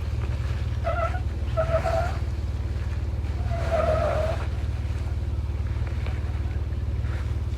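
Off-road 4x4's engine running steadily at low speed, with three short squeals from the vehicle about one, two and four seconds in.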